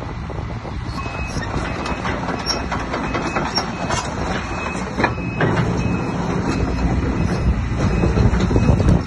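Case CX250C excavator's diesel engine running as the machine travels on its steel tracks, with frequent clanks from the tracks; it grows louder over the last few seconds.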